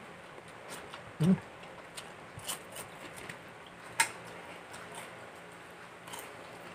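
Quiet eating sounds of people eating with their fingers: small chewing and lip-smacking clicks. There is a short low hum of a voice about a second in and one sharp click about four seconds in.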